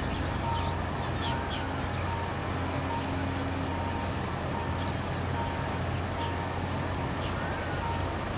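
Steady low engine rumble from a large container ship and its pilot boat passing close, under a short high beep that repeats about twice a second.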